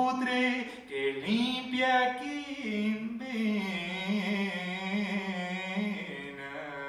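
A solo voice singing unaccompanied: a slow, chant-like melody of long held notes. From about two and a half seconds in, one long note wavers gently and fades toward the end.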